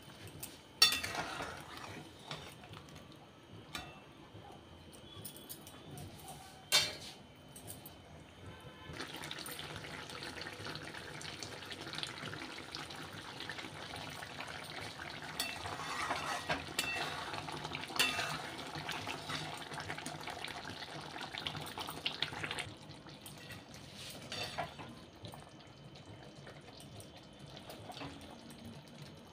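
Soya chunk curry simmering in an aluminium kadhai: a steady bubbling hiss from about nine seconds in that stops suddenly around twenty-two seconds. A metal spatula knocks sharply against the pan twice, about a second in and again about seven seconds in.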